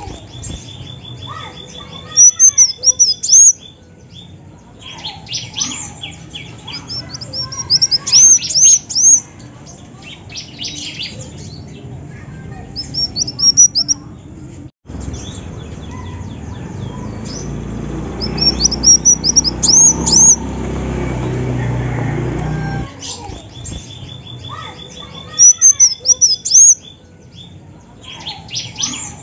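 Female kolibri wulung (sunbird) calling: repeated bursts of high, rapid chirps that swoop up and down, each burst a couple of seconds long with pauses between, six bursts in all. A steady low hum runs underneath.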